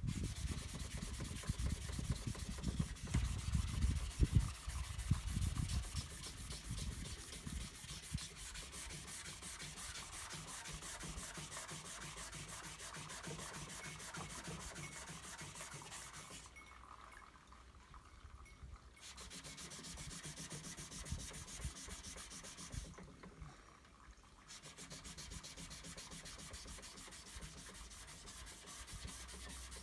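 Sandpaper dry-sanding hardened body filler, a steady scratchy rasp that stops briefly twice. Heavy low knocks come through in the first few seconds.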